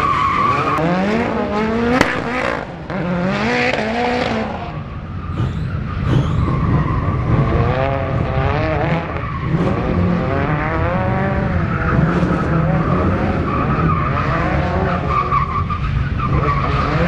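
Car being drifted around cones: its engine revs up and down over and over while the tyres squeal and skid on the pavement.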